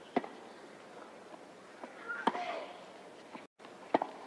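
Tennis ball struck back and forth in a baseline rally: three sharp racket hits about two seconds apart, with fainter ticks between. The sound cuts out for an instant just after the third second.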